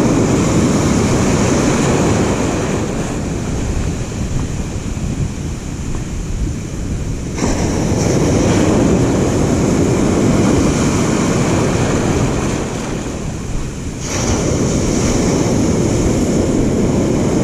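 Ocean surf breaking and foaming close around, mixed with wind buffeting the microphone. The hiss turns suddenly louder and brighter twice, about seven and fourteen seconds in.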